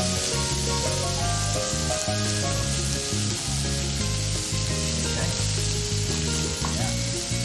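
Food sizzling and frying on a hot cooking surface, a steady hiss, over background music with a changing bass line.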